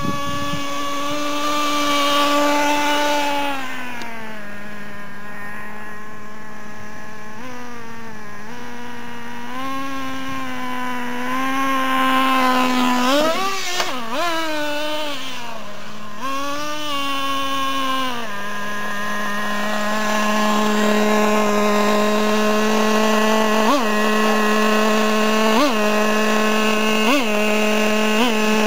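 Small glow-fuel (nitro) engine of a radio-controlled truck running at a high, steady note, rising and falling as the throttle is worked, then held steady with a few short throttle blips near the end.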